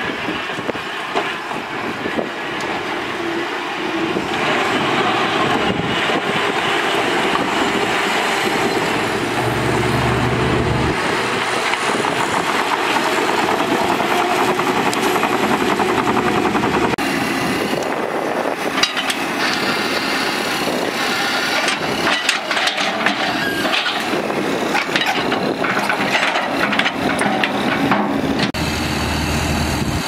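Diesel engines of heavy earthmoving machines, a bulldozer and an excavator, running steadily under load. Past the middle come many short knocks and clanks.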